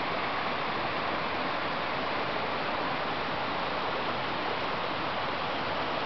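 Small waterfall cascading down rock tiers into a shallow pool, a steady, even rush of falling water.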